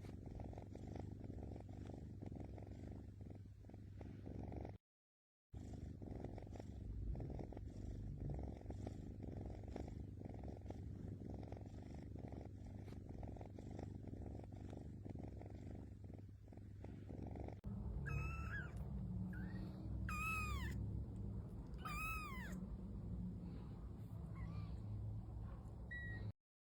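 Domestic cat purring close to the microphone, a steady low flutter. Near the end three short, high, squeaky mews sound about two seconds apart over continued purring.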